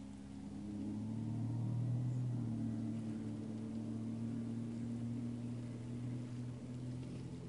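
A motor engine running steadily with a low hum of several held pitches, growing louder about a second in and then holding.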